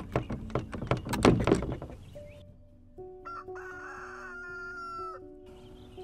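A rooster crows once, a single long call of about two seconds that drops in pitch at the end, over soft steady background music. Before it comes a quick run of sharp clicks and knocks.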